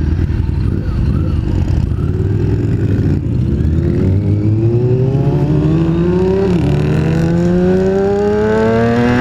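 Motorcycle engine accelerating hard through the gears over wind rush. Its pitch climbs steadily, drops with an upshift about six and a half seconds in, then climbs again to another shift at the very end.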